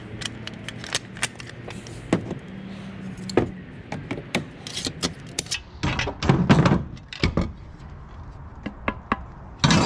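Clicks, taps and clanks of the steel casing and parts of an old oscillating fan being taken apart by hand, with a louder clatter of handling about six to seven seconds in. A low steady hum runs underneath.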